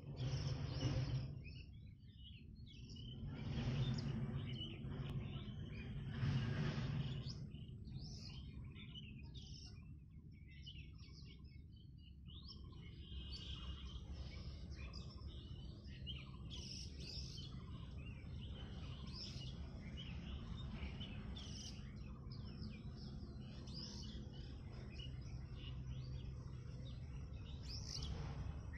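Small birds chirping repeatedly with short high calls over a steady low outdoor background, the chirps thickest in the second half. Three louder rushes of noise come in the first seven seconds.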